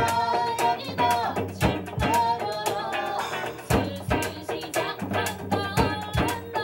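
Band music: a woman singing over drum kit and hand percussion.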